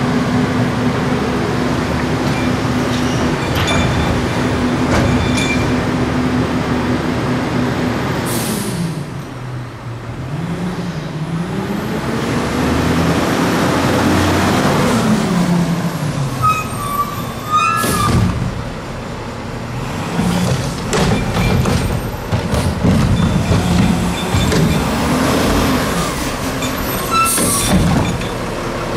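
CCC LET2 garbage truck's diesel engine held at a steady speed, then dropping and revving up and down over and over. Three sharp air-brake hisses come about a third of the way in, around the middle and near the end.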